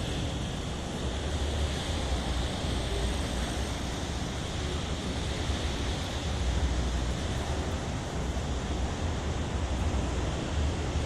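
Wood sawdust hammer mill running steadily: an even, continuous rush of noise over a deep low rumble, with no breaks or strokes.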